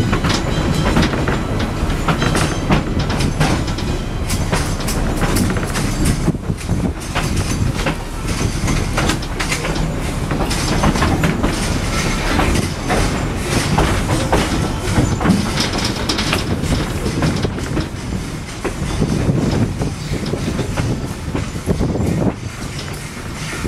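Tweetsie Railroad narrow-gauge passenger train rolling along the track, its wheels clicking over the rail joints with some squeal from the wheels.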